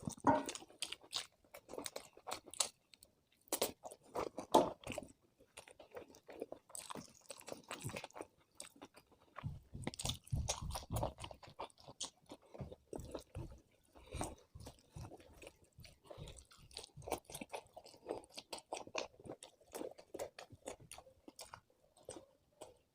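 Close-miked eating sounds: a person chewing with irregular crunches and bites through a meal of chicken biryani, roast chicken and green chillies.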